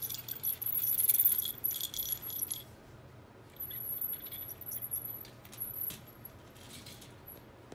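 Small plastic LEGO pieces of a toy truck rattling and clicking as it is pushed along a rug. The rattling comes in two spells, the first loudest about a second in, and a second from about three and a half to six seconds.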